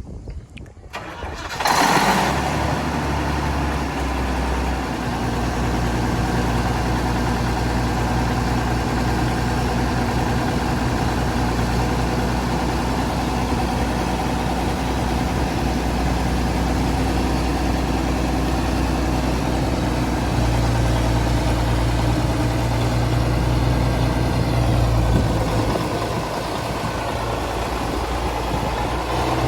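Steiger Panther ST325 four-wheel-drive tractor's diesel engine starting about two seconds in, then running steadily at idle.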